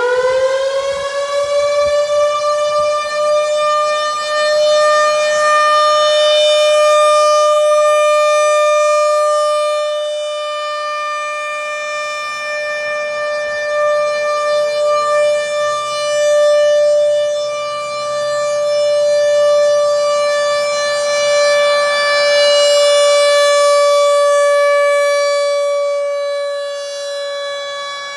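ASC RM-130 outdoor warning siren finishing its wind-up and then holding one steady tone, the level slowly swelling and fading several times. This is the steady signal of its monthly three-minute full test.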